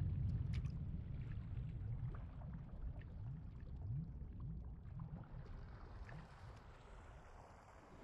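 Excerpt of an acousmatic sound-design composition: a deep, water-like rumble with gurgles, scattered drips and a few short low rising swoops, gradually fading out.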